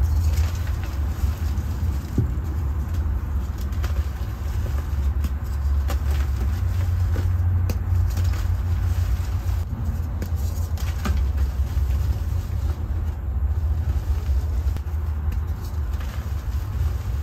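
Hands crushing and crumbling soft reformed gym chalk chunks in loose powder, with scattered small crunches and crackles. Under them runs a steady low rumble of background noise, the loudest sound throughout.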